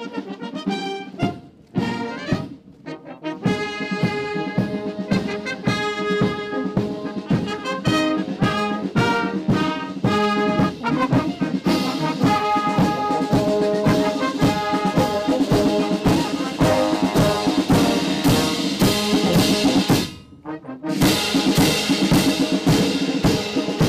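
Military brass band playing a march: trumpets, tubas and trombones over a steady beat of bass drum and crashing cymbals. The music breaks off briefly about twenty seconds in, then starts again.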